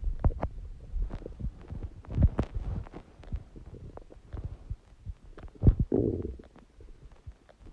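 Human stomach gurgling: irregular low rumbles and wet pops, the loudest about two seconds in and again near six seconds, trailing off toward the end.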